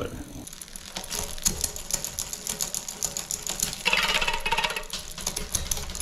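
Bicycle chain running through the rear derailleur and over the spinning rear cogs of a 1992 GT Karakoram mountain bike as the cranks are turned on a work stand, a fast steady ticking chatter with a louder rasping patch about four seconds in. The derailleur hangs on a bent derailleur hanger.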